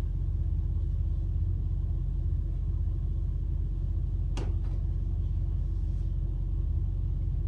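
Yamaha MF 180 engine running steadily at a constant speed, with a single sharp click about halfway through.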